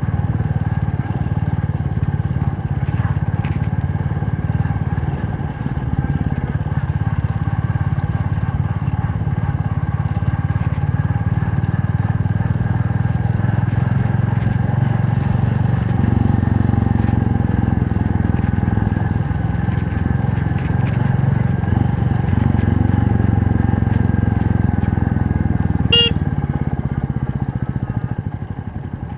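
Motorcycle engine running as the bike is ridden, heard from the rider's seat. Its low note gets fuller a little over halfway through, there is one sharp click near the end, and the sound falls away just before it ends.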